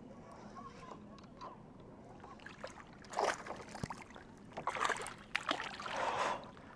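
A hooked bass splashing and thrashing at the water's surface beside a kayak as it is reeled in, in several bursts starting about three seconds in, with a sharp click near the middle.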